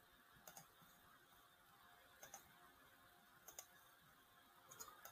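Faint computer mouse clicks, mostly in quick pairs, four times over a few seconds against near-silent room tone.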